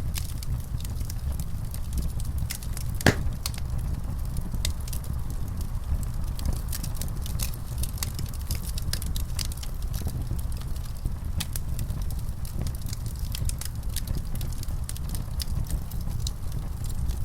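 Fire in a fireplace crackling: many small, sharp, irregular pops over a steady low rumble, with one louder pop about three seconds in.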